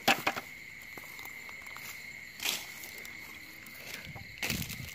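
Night insects chirring in one steady, unbroken high tone. Over it come short bursts of footsteps and rustling on dry leaf litter: at the start, about two and a half seconds in, and a longer one near the end.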